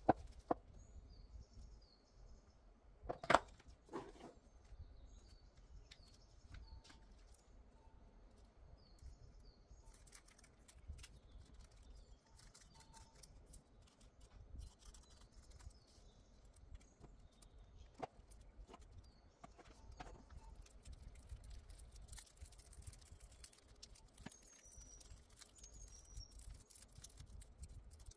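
Quiet handling of nail tips and transfer foil: a few sharp clicks, the loudest near the start and about three seconds in, then small snips and crinkles as the foil is cut with scissors and pressed on. Faint bird chirps sound in the background throughout.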